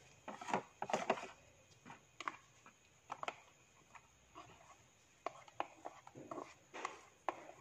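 Metal spoon scraping and tapping against the inside of a steel mixer jar as thick whipped cream mixture is scraped out into a plastic container: soft, irregular clicks and scrapes.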